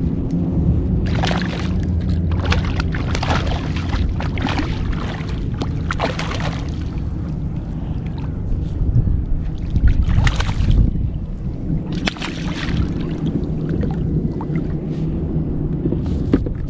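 Water splashing in repeated short bursts as a hooked spotted seatrout thrashes at the surface beside a kayak, over a steady low rumble.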